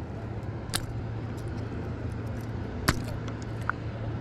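Handling clicks as a jig is worked free from a largemouth bass's mouth: a few sharp clicks and taps, the loudest about three seconds in, over a steady low hum.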